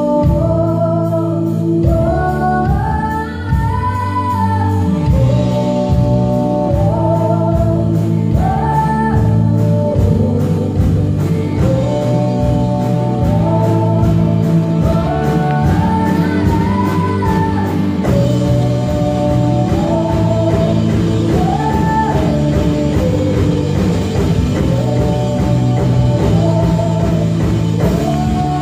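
A small live band playing a song, with a woman singing a gliding melody over guitars, keyboard and drum kit.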